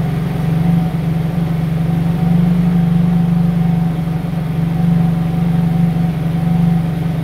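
Yamaha Cygnus scooter's carbureted single-cylinder four-stroke engine idling steadily for an exhaust emissions test. The owner says it tends to stall once warm.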